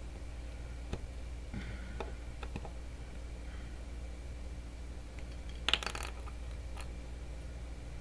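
Light clicks and taps of needle-nose pliers and a small plastic super glue bottle being handled while a sewing needle is worked into the clogged glue nozzle, with a quick cluster of sharper metallic clicks about six seconds in. A steady low hum lies underneath.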